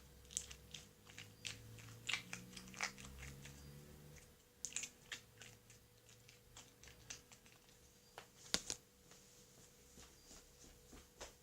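Thick slime being squeezed and worked by hand, giving irregular wet pops and clicks, with one sharper pop about eight and a half seconds in.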